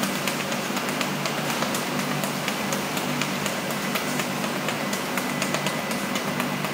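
Large stainless-steel planetary mixer running, its beater turning through a thick green paste: a steady machine hum with rapid, irregular clicks and rattles.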